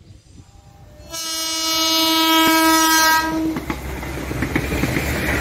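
A train horn sounds one steady blast of about two seconds, starting about a second in. It is followed by the rumble of a KAI rail inspection car passing close by, with its wheels clattering over the rail joints.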